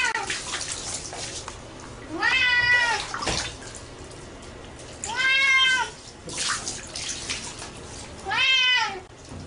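Wet domestic cat meowing while being bathed: three long meows about three seconds apart, each rising then falling in pitch, with water pouring and splashing over it between the calls.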